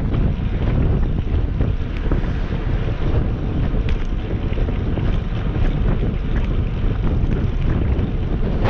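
Wind buffeting the microphone of an action camera on a moving bicycle: a loud, steady rumble, with a few small clicks and rattles from the bike on the road.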